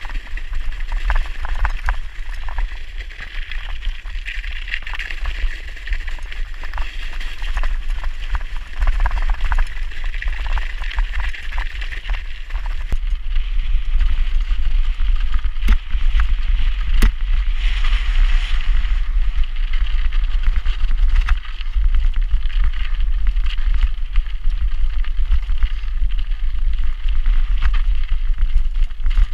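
Mountain bike riding fast over a snowy, stony track: heavy wind rumble buffeting the microphone, with the tyres hissing and crunching over snow and gravel and the bike rattling and knocking over stones.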